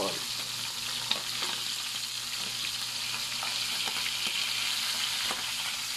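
Salmon head pieces sizzling and crackling in hot oil in a frying pan, with a wooden spatula pushing and scraping them around. A sharp click about a second in.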